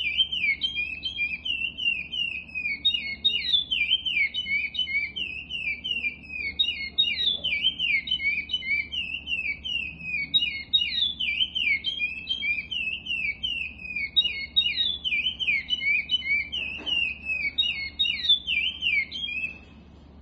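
Male curió (chestnut-bellied seed finch) singing the Paracambi clássico song: a continuous run of quick, sliding whistled notes repeated in phrases, which stops shortly before the end.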